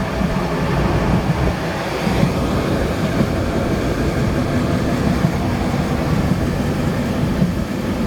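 A moving train running steadily, a dense low rumble of wheels and carriages.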